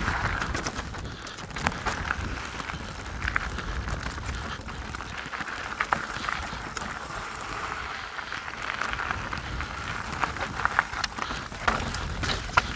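Canyon Strive mountain bike riding down a rough trail: a steady noise of tyres on dirt and stones, broken by many sharp clicks and rattles from the bike and loose rocks.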